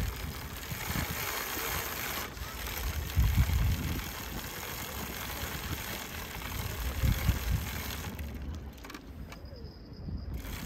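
Wind buffeting the microphone in irregular gusts over a steady rushing hiss. The hiss thins out near the end.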